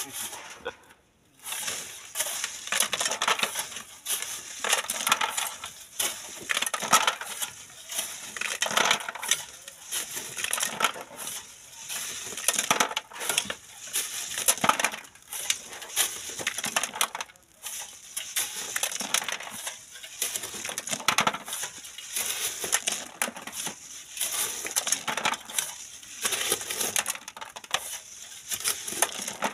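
Sand and gravel being scraped with a hand hoe and shaken through a wire sifting screen: gritty scraping and rattling in repeated strokes about once a second.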